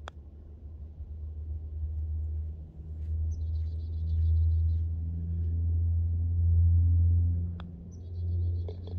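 Two putts: the light click of a putter striking a golf ball right at the start and again about seven and a half seconds in. Under them a low rumble swells louder through the middle, and a faint high trill comes and goes a few times.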